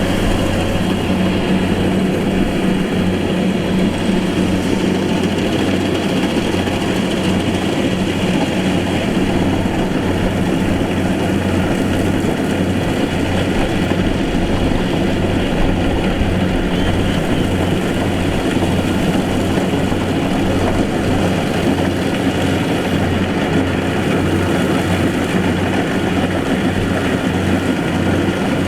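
Engine of a heavy farm harvesting machine running steadily at a constant speed, with a deep, even hum.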